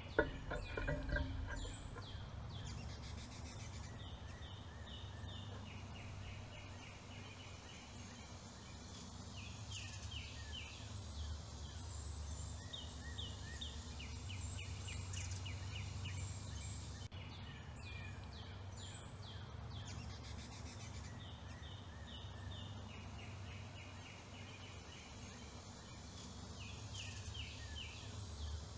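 Wild songbirds singing: phrases of quick, slurred whistled notes, repeated every couple of seconds, over a steady low background rumble. A short louder burst of noise comes in the first second.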